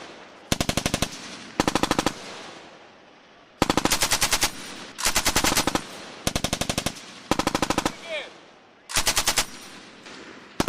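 Belt-fed machine gun firing short bursts of rapid shots, about seven bursts of roughly half a second each with brief pauses between, and another burst starting at the very end.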